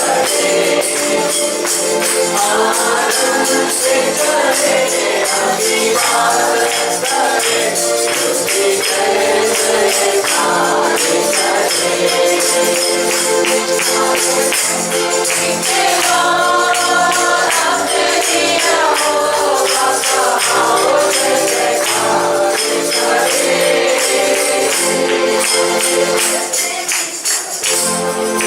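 Worship music: a group singing over instrumental accompaniment, with a tambourine shaken in a steady rhythm throughout.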